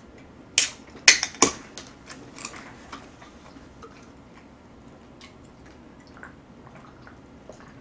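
Aluminium can of sikhye (Korean sweet rice drink) being handled: three sharp metallic clicks within about a second, starting just over half a second in, then fainter ticks, and quiet drinking from the can near the end.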